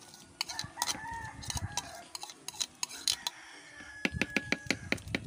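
Metal spoon scraping and clinking against a ceramic bowl as young coconut strips are pushed out into a plastic pitcher, with scattered clinks at first and then a quick run of about eight taps near the end.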